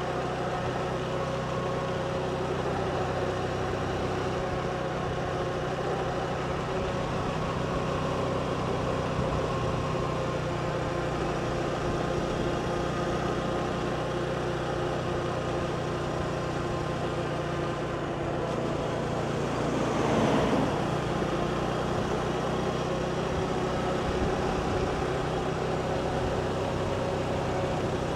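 Motorbike engine running at a steady speed under road and wind noise, with a brief louder rush about twenty seconds in.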